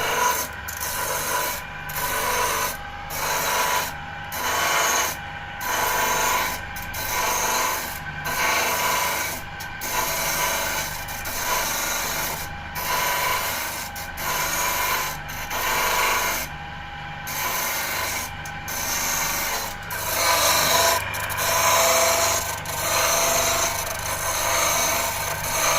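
Electric disc sander running with a steady hum while a small beech wooden block is pressed against the disc in repeated strokes, about one a second, grinding a bevel onto its edge.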